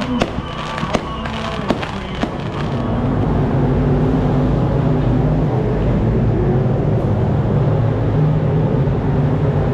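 Fireworks popping and crackling for the first two to three seconds. Then a steady low rumble of race car engines running takes over.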